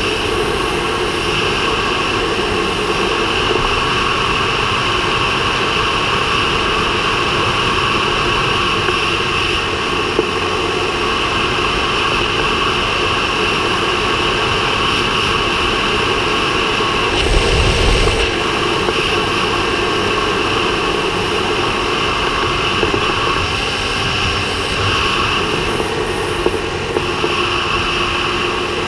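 Ducati Hyperstrada motorcycle cruising steadily: its L-twin engine running under a continuous rush of wind over the microphone and road noise. A brief low thump comes about seventeen seconds in.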